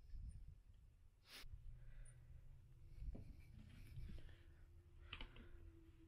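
Near silence: faint rustling and handling noise, with one sharp click about a second and a half in and a faint steady hum in the second half.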